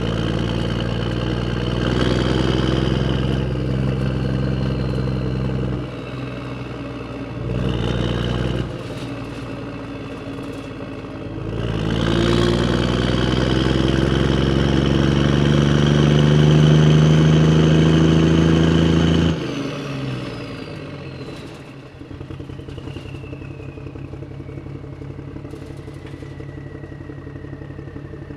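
Vehicle engine running and revving: held at speed, a short rev, then a long rising rev that cuts off suddenly. It then drops to a quieter, steady idle.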